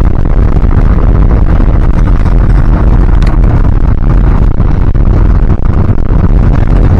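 Old Dodge truck driving: a loud, steady low rumble of engine and road noise.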